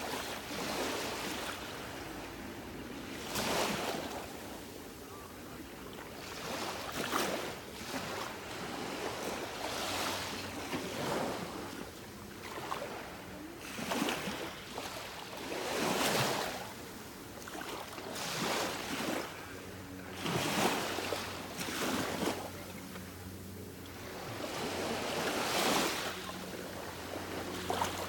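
Small waves washing up onto the shore, a surge every three to four seconds. A faint low steady hum sits underneath in the second half.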